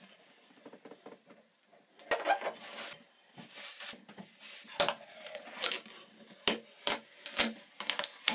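Hands working at a freshly siliconed tub spout: a faint rustle, then from about two seconds in a string of sharp clicks and crackles as the silicone bead is smoothed by finger and blue painter's tape is peeled off the chrome spout.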